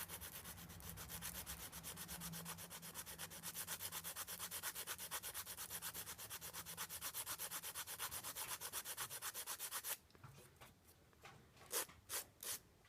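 Hand sanding of a small wooden part with a sanding stick faced with hook-and-loop sandpaper: quick, even back-and-forth strokes, several a second. The strokes stop about ten seconds in, followed by a few separate short scrapes.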